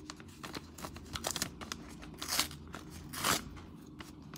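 Paper greeting-card envelope being opened by hand: soft rustling and small crackles of paper, with two louder tearing sounds about two and three seconds in.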